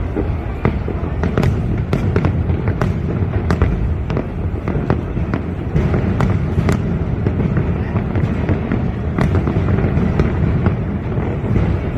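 Fireworks going off in a dense, continuous display: a steady low rumble of bursts with many sharp cracks and pops at irregular intervals.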